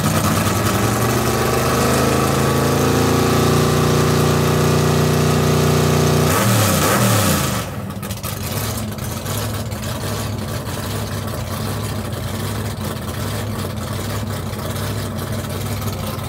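Supercharged Hemi V8 running with its revs climbing steadily, then a sudden loud rush of air about six seconds in as the revs fall: the intake burst panel blowing out from overboost. The engine then runs on at a lower, steadier speed.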